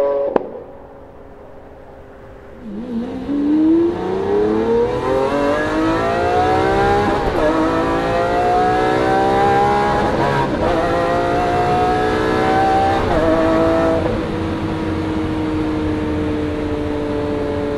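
Lamborghini Aventador's V12 with a Capristo cat-less straight-pipe exhaust, heard inside the cabin under hard acceleration: after a quieter first couple of seconds the engine note climbs steeply from about three seconds in, drops back at three quick upshifts, then settles into a steady, slowly falling drone as the driver eases off.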